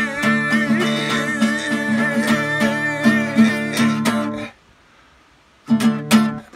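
Acoustic guitar strummed steadily, with a wavering held vocal note over it, cutting off about four and a half seconds in; two loud final strums follow near the end.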